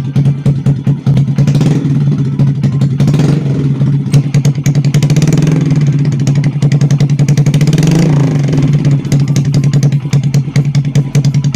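Honda Revo Fit's single-cylinder four-stroke engine running through a newly fitted SC Project-replica slip-on silencer, loud ("kenceng banget"). It idles with a fast, steady exhaust beat, and the throttle is blipped several times, each rev swelling and falling back to idle.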